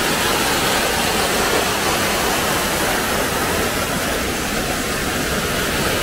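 Large waterfall close by: a steady, unbroken rush of heavily falling water in strong flow.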